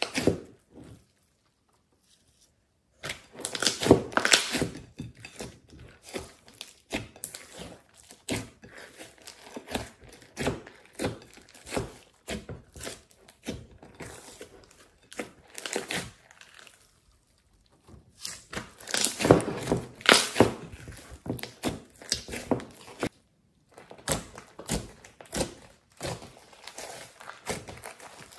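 Hands kneading, stretching and folding a large lump of slime with clay mixed in: sticky squishing with dense clusters of crackly clicks, in bouts separated by a few short pauses.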